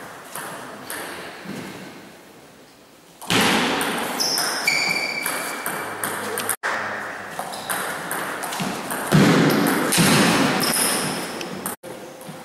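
Table tennis ball clicking off bats and the table in quick rallies, with two louder noisy stretches and a brief squeak about five seconds in.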